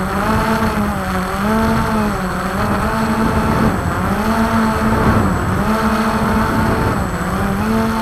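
Quadcopter drone's motors and propellers humming, the pitch rising and falling every second or so as the motors speed up and slow down, over a low rumble of wind on the microphone.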